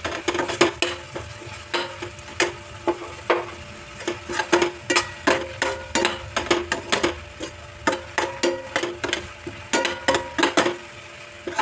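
Metal perforated spoon scraping and knocking against a stainless steel pan, many quick irregular strokes each with a short metallic ring, while chopped onion, garlic, ginger and green chilli sauté in hot oil with a steady sizzle underneath.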